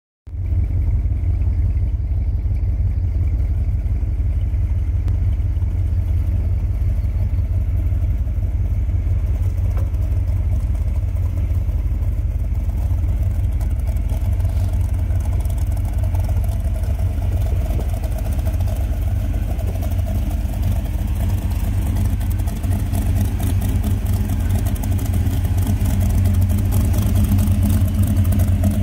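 Engine of a big-block Chevy V8 Jeep JK running with a steady deep rumble at low revs. It grows a little louder over the last few seconds as the Jeep comes up close alongside.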